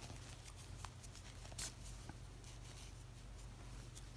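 Faint soft rustling and a few light ticks of cotton yarn being drawn through crocheted stitches while the tail is woven in.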